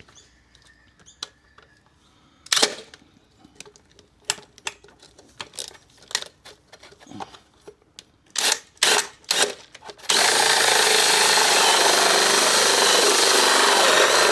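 Handheld power tool cutting into the plastic of a Ford Ranger's airbox. It runs steadily and loudly for about four seconds near the end, after a run of scattered knocks and clatters of handling.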